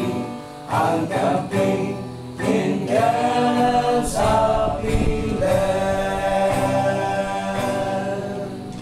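A small group of men singing a gospel hymn together to acoustic guitar, holding long notes in the second half and easing off toward the end.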